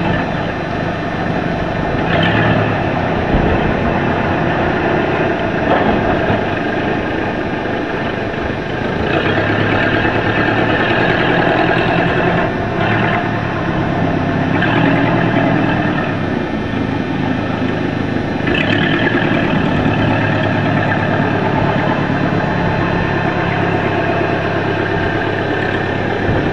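An engine running steadily, growing louder for a few seconds at a time now and then.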